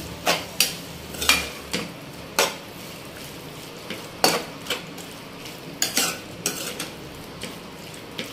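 Metal spatula scraping and clacking against a pan while stirring chicken pieces frying in oil. The clacks come at an irregular pace over a steady sizzle.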